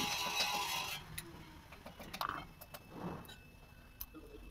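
Background music that cuts off about a second in, then a few light metallic clicks and taps as a feeler gauge and tools work against the rocker arms and valve gear of a diesel engine during tappet clearance adjustment.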